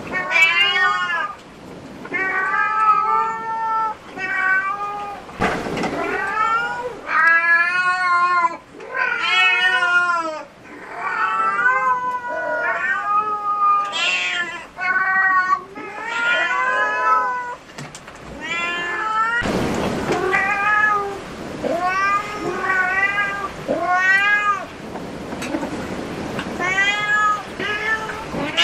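Domestic cat meowing over and over: loud, drawn-out, wavering calls, one after another with only short breaks between them.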